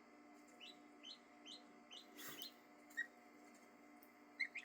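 Faint peeping of young ducklings and goslings: short high chirps, roughly one every half second, over a steady low hum.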